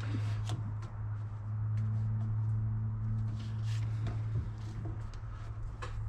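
Polaris RZR 800 engine being cranked over by its starter with the spark plugs removed, a steady low whir with a few light clicks. The engine is being spun to prime it with oil after a rod-bearing rebuild.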